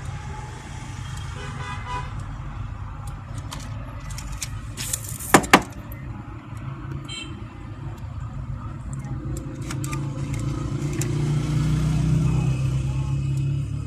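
Road traffic: a steady low rumble of passing vehicles that swells near the end, with two sharp short sounds about five seconds in.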